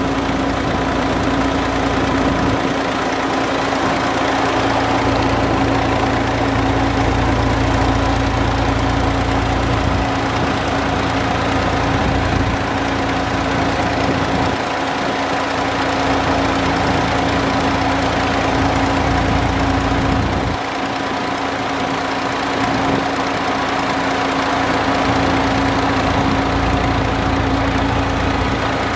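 Diesel tractor engine running at a steady speed under load, turning its PTO shaft to drive two tubewell pumps through large pulleys and flat belts, with a constant steady hum.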